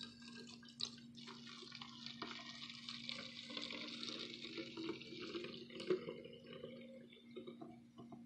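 Liquid poured in a thin stream into a plastic spray bottle, trickling and splashing inside it, with a couple of light knocks against the bottle. The pour grows fuller about a second in and tapers off after about six seconds.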